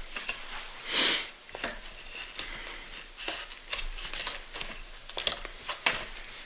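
Small parts being handled by hand: scattered light clicks and rustling, with a short rush of noise about a second in.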